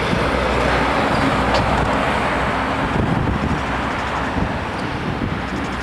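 Road traffic noise as a lorry comes along the road, with wind on the microphone.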